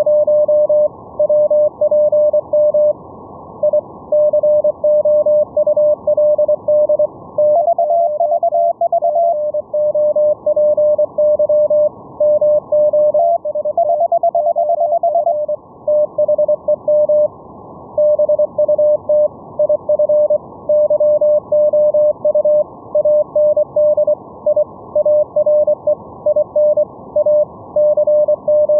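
Morse code (CW) tones received through a software-defined radio: one steady-pitched tone keyed on and off in dots and dashes over a band of receiver hiss. About a quarter of the way in, and again around the middle, a second CW signal at a slightly higher pitch keys at the same time as the first.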